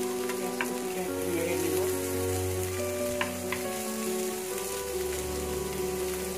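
Sliced onions sizzling as they fry in butter in a frying pan, stirred with a wooden spoon that knocks against the pan a few times. Soft background music plays under it.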